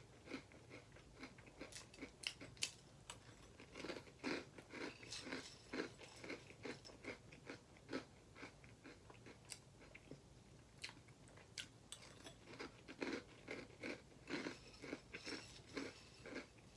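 Close-up chewing of crunchy Apple Jacks cereal, with many short crisp crunches coming irregularly and pausing briefly in places.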